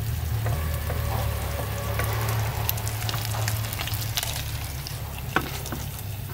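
Guapote fish frying in hot oil, sizzling with scattered fine crackles over a steady low hum. There is a single sharp click about five seconds in.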